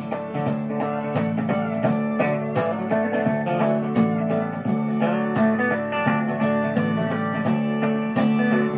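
Instrumental break of a country song with no singing, led by plucked guitar over steady held low notes.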